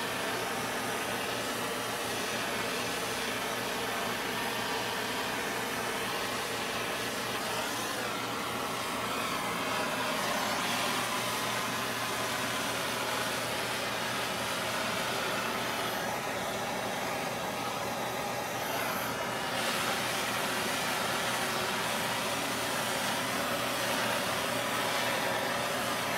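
Handheld gas torch burning with a steady rushing hiss as its flame is played over a heat-shrink boot on a coaxial cable splice.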